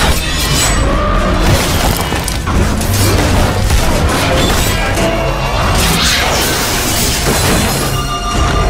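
Action-film fight soundtrack: score music mixed with repeated crashing, smashing impacts and deep booms over a low rumble.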